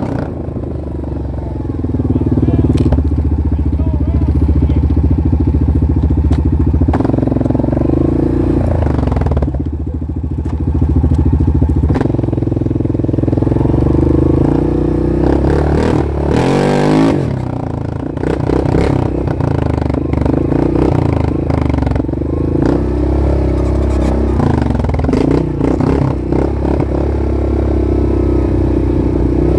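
Off-road vehicle engine running under changing throttle, its pitch easing off and picking up again twice, with knocks and rattles from the vehicle over rough ground. A brief rush of noise comes about sixteen seconds in.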